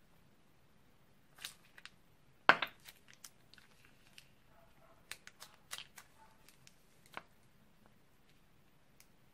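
Plastic piping bag crinkling and crackling as it is squeezed to pipe slime mixture out of its tip. Scattered short clicks and crackles, the loudest about two and a half seconds in.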